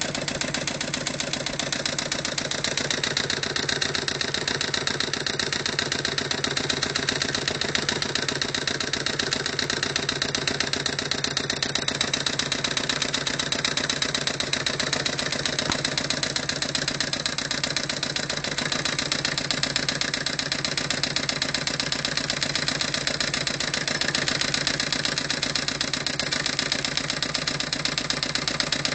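Homemade flame-heated hot-air (Stirling) engine, built from scrap parts, running steadily with a fast, even mechanical clatter that does not change speed.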